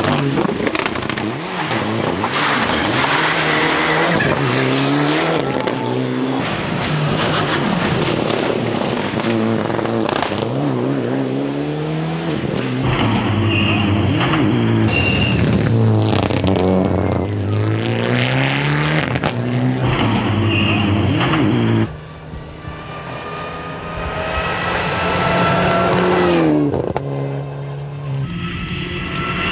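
Mitsubishi Lancer Evolution rally car's engine at full throttle, revving up and falling back sharply at each gear change, repeated over several passes. The sound drops suddenly in level about two-thirds of the way in, then the engine climbs again.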